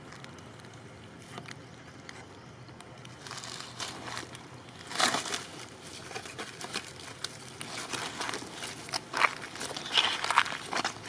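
Rustling and crackling, like movement over dry leaves, quiet at first and turning busy with many short crackles and a few louder bursts from about four seconds in.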